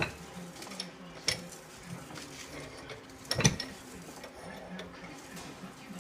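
Scattered light metal clinks and knocks from hand work on steel at a slip roll. There are three sharper knocks, the loudest about three and a half seconds in, over a faint low hum.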